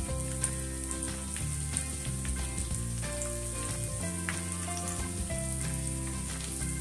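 Crushed garlic cloves frying in hot oil in a nonstick pan: a steady sizzle with fine irregular pops and crackles.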